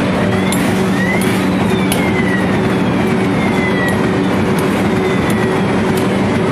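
Rotary die-cutting machine running as printed corrugated board sheets pass through: a loud, steady hum with irregular sharp clicks, and a faint whine that slowly rises and falls.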